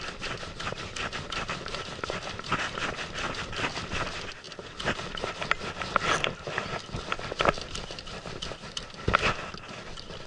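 Rapid, irregular clicking and knocking from a jigging rod and reel being worked. A few louder knocks come in the second half, as the jig is jerked again.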